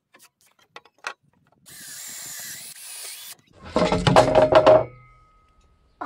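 Cordless drill-driver running hard for a little over a second, driving a 75 mm self-drilling screw through a pine board into the steel square-tube frame, with the motor tone dying away as the trigger is released. A few light clicks and a soft scraping hiss come before it.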